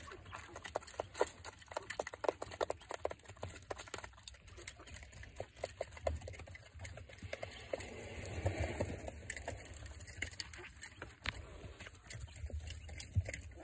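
Quail in a pen: many light pecking taps and scratching in wood shavings, thickest in the first half, with soft bird calls now and then.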